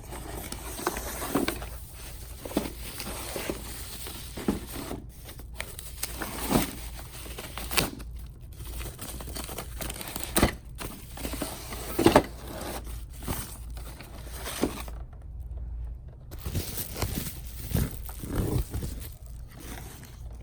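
Plastic packaging crinkling and tearing, with cardboard and packing material rustling and occasional sharp knocks, as a robot vacuum is lifted out of its box and unwrapped. The handling noise pauses briefly past the middle, then resumes.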